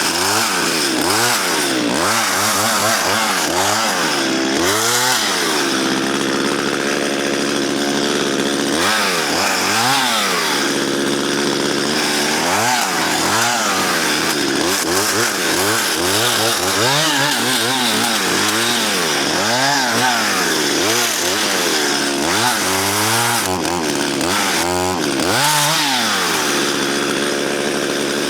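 Chainsaw cutting through spruce, its engine revving up and dropping back over and over. The chain is dull and struggles into the wood, so the saw has to be revved hard.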